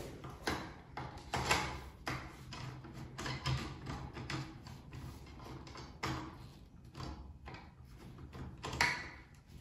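Handling noise of an OB pipe-plug applicator tool: irregular clicks, knocks and scrapes as its long metal rod is worked inside the plastic inlet fitting of a water-meter stand to free the plug, over a low steady hum. The loudest knocks come about a second and a half in and again near the end.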